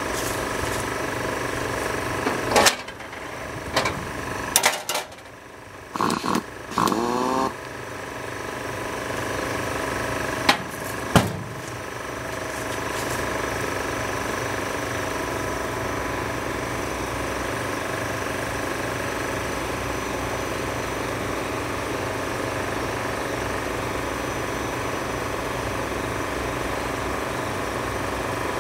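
Steady mechanical hum of a running motor or engine, with a few sharp knocks in the first dozen seconds. Several seconds in, the hum drops away briefly and then builds back up.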